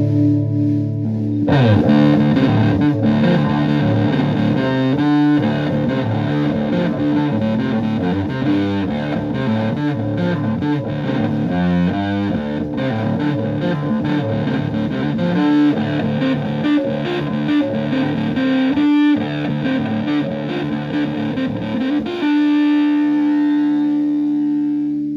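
Electric guitar (Gibson Les Paul in drop D) through a silicon Fuzz Face fuzz pedal and a clean Fender Twin Reverb clone amp, on a heavy stoner-rock fuzz setting. A low, distorted riff plays for about twenty seconds, then a held chord rings out and starts to fade near the end.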